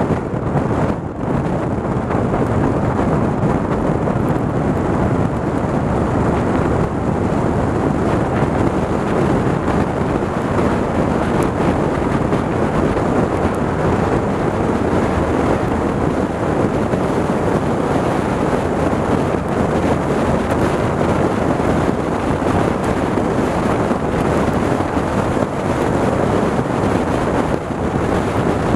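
Steady roar of wind buffeting the microphone of a camera on a motorcycle riding at road speed in stormy weather, with no distinct engine note standing out.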